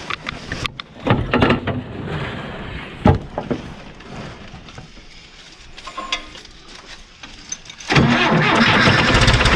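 A few scattered metallic knocks and clanks of work on the John Deere 450C bulldozer. About eight seconds in, its diesel engine comes in suddenly and runs loudly and steadily.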